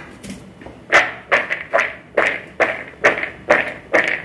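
Raw peanuts and gram flour rattling and swishing in a plastic plate as they are tossed and mixed, in a steady rhythm of about two to three strokes a second.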